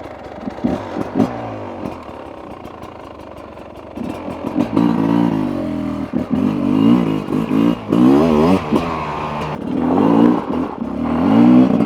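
Beta RR 300 single-cylinder two-stroke enduro engine pulling away. It runs low and quiet for the first few seconds, then revs up and down repeatedly from about four seconds in as the bike accelerates.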